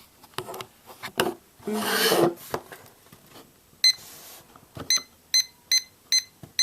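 Digital timer beeping: a run of short, high, evenly spaced beeps, about two to three a second, starting a little after halfway, as the time limit is set. Before them, scattered clicks and a brief rustling burst.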